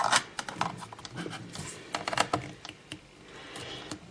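A knife blade clicking and scraping against the plastic memory-bay cover on the underside of an Asus Eee PC netbook as it is pried at. The clicks come quickly and irregularly, then thin out and grow fainter after about two and a half seconds.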